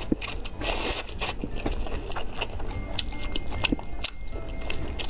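Close-up eating sounds: spicy instant noodles slurped into the mouth about half a second in, then chewing with many small wet clicks.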